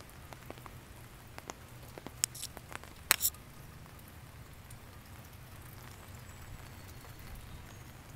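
Light rain falling on a garden, an even patter with scattered dripping ticks. A few louder sharp taps come about two and three seconds in, over a steady low hum.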